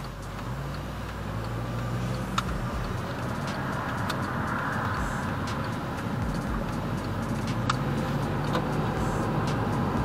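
Car running on the road, heard from inside the cabin: the engine note rises in pitch as the car picks up speed after a turn, over a bed of tyre and road noise that slowly grows louder.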